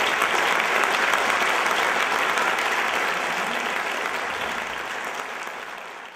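Theatre audience applauding, a dense steady clapping that fades away over the last couple of seconds.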